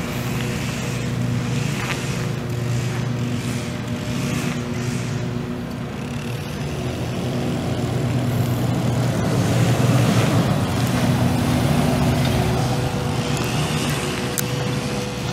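5.7-litre V8 engine of a 2013 Ram 2500HD pickup running at a steady idle. It grows louder for a few seconds past the middle without changing pitch.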